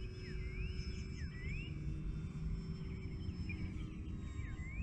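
Wind rumbling on the microphone, under a faint steady whine from the electric motor of a distant E-flite Air Tractor RC plane. Birds call over it with short rising chirps, several times.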